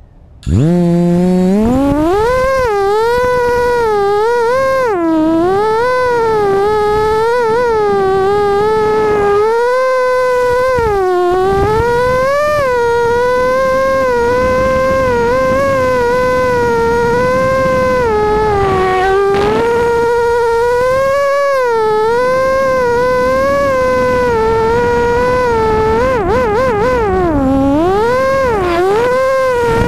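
Racing quadcopter's brushless motors whining in flight, the pitch shooting up as they spin up about half a second in, then rising and falling constantly with the throttle, with a few brief dips where the throttle is chopped.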